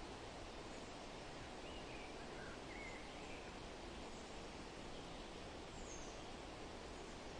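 Steady rustling of wind through forest leaves, with a few faint bird chirps: a short cluster about two to three seconds in and one higher chirp near six seconds.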